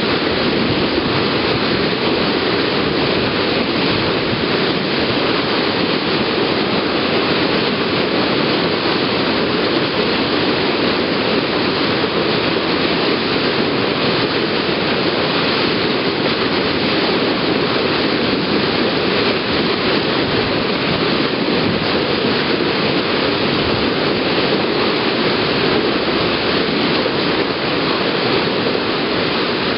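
Bow wave of a moving passenger ferry, water rushing and splashing steadily against the hull.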